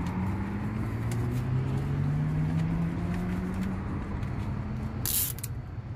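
A motor vehicle's engine running, with a low rumble and a pitch that rises slowly for about four seconds as it speeds up. A short burst of hiss comes about five seconds in.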